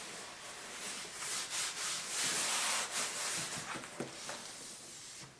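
Rustling and rubbing of a wrapped package being handled and turned over, a scratchy hiss that grows louder in the middle, with a few soft knocks.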